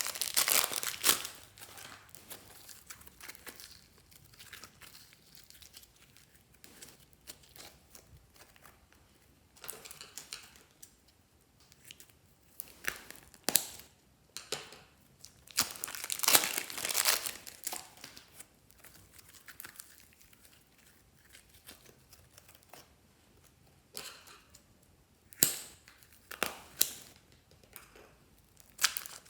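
Slime being squished and stretched by hand, giving sticky crackling and crinkling in scattered bursts with quieter pauses between.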